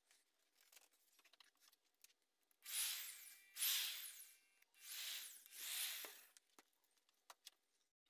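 Electric drill run in four short bursts, boring a hole through the centre of a plastic bottle cap; the motor's whine rises and falls with each trigger pull.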